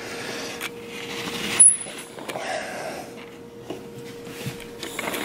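Hole saw turned by hand, its teeth rasping and scraping into drywall in uneven strokes, with one sharp click about a second and a half in.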